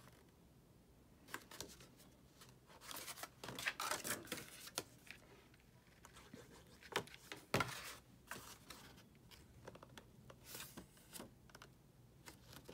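Stiff cardstock paper petals rustling and scraping softly as they are handled and pressed into place, with a few sharp clicks and taps in between.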